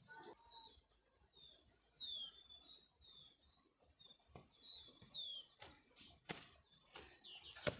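Faint songbird calls: a string of short, high, downward-sliding whistles repeating about once or twice a second, mixed with quick runs of chirps. A few faint clicks come near the end.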